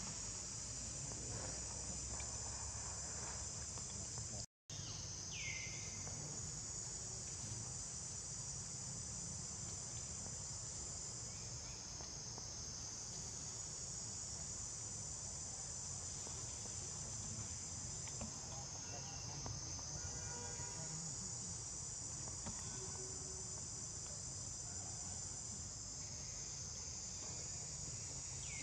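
Steady, high-pitched chorus of insects, rising and easing slowly. There is a short gap about four seconds in, and a brief falling squeak just after it.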